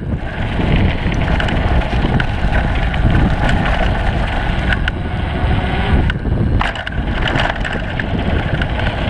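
Mountain bike rolling fast down a dirt trail: steady wind buffeting the helmet- or bike-mounted action camera's microphone, tyres on packed dirt, and scattered clicks and rattles from the bike over bumps.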